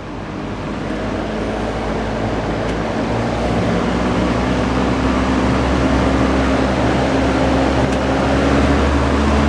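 DeWalt 18-inch drum fan running: a loud, steady rush of air over a low motor hum, growing louder, most of all in the first second or two.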